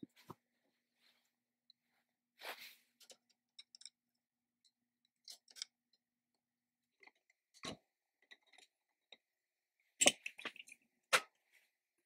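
Scattered clicks and light taps of small metal parts being handled as a thin metal plate is fitted against the mortiser's painted metal housing, with a brief scrape a couple of seconds in and the sharpest clicks, two close together, near the end.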